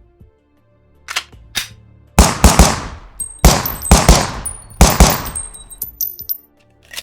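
Colt Model 1903 Pocket Hammerless .32 pistol: two mechanical clicks, then a rapid string of about nine shots fired in quick groups, each with a long echoing tail, with thin high metallic ringing among the later shots.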